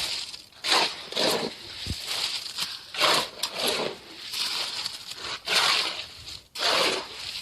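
A tool scraping through wet concrete against stone in a series of short rasping strokes, about one or two a second.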